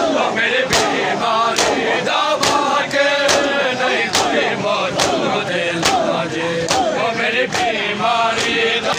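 Crowd of mourners chanting in unison while striking their bare chests with their hands together in matam, a sharp massed slap landing about once a second on a steady beat.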